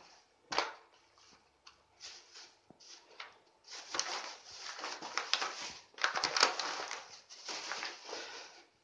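Polyethylene bag and paper wrapping rustling in irregular bursts as bundles of paper-wrapped cuttings are handled and put into the bag. The rustling is sparse at first and nearly continuous from about four seconds in.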